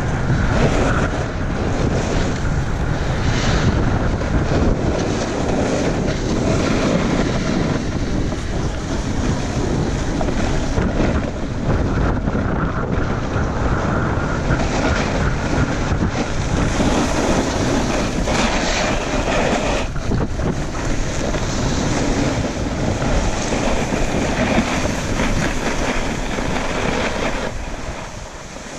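Wind buffeting the microphone of a camera moving downhill, over a steady rumbling scrape of edges sliding across packed snow. It eases a little near the end.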